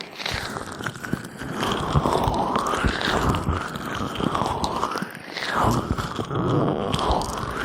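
Gloved, oiled hands rubbing and massaging a binaural microphone's ears close up: slick, crackly friction in slow strokes that rise and fall in pitch.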